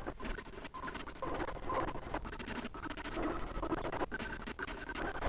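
Bambu Lab A1 3D printer's toolhead and bed moving in quick stop-start strokes during motor noise cancellation calibration. The stepper motors are quiet, so mostly the bearings running on the linear rails are heard, as an irregular scratchy patter.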